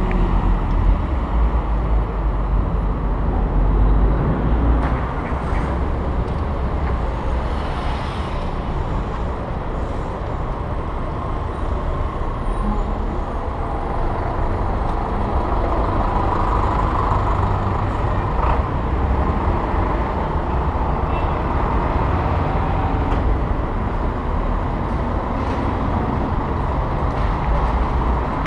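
City street traffic: cars and trucks running close by, a steady low rumble with no single event standing out, heard from a moving bicycle in the traffic lane.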